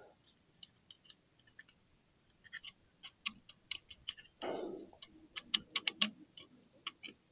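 Metal clutch plates, friction and steel drive plates, clicking and clinking against each other as they are handled, several irregular ticks a second. The clicks are most frequent and loudest near the end, with a brief duller scrape a little past halfway.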